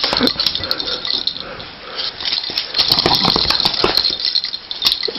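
Scottish terrier worrying a slipper: an irregular run of clicks, scuffs and rattles as she chews, shakes and scrabbles at it.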